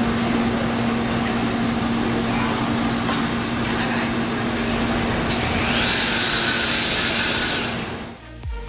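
Steady rushing noise with a low steady hum beneath it, growing brighter and hissier for a moment partway through. It fades out about eight seconds in as an electronic dance music track with a kick-drum beat starts.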